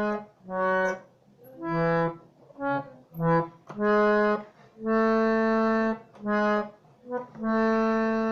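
Harmonium played one note at a time with one finger: a melody line of about ten separate reedy notes with short gaps, two of them held longer near the middle and the end. This is the tune of the shabad's antara, pitched for the female scale.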